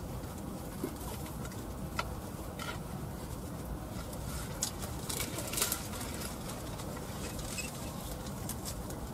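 Dry esparto grass strands rustling and crackling as they are plaited by hand into a braid, with scattered sharp crackles and a cluster of them about five seconds in, over a steady low background noise.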